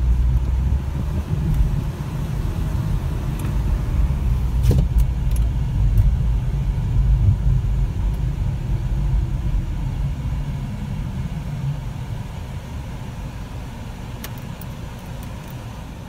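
Road and engine noise heard inside a moving car's cabin: a steady low rumble that grows quieter over the last few seconds as the car slows toward a traffic light, with a couple of faint clicks.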